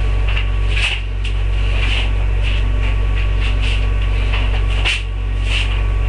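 Loud steady electrical hum on the recording, with scattered short rustles and scrapes over it. The hum dips briefly about a second in and again near the end.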